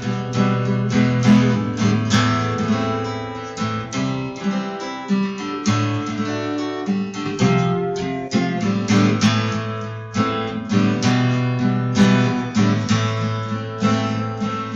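Steel-string acoustic guitar strumming chords, the strokes coming one after another throughout.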